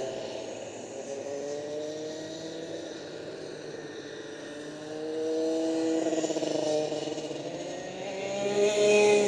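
Rotax two-stroke racing kart engines passing by on the track. Their pitch glides up and down as each kart goes past, with a louder pass about five seconds in and another near the end.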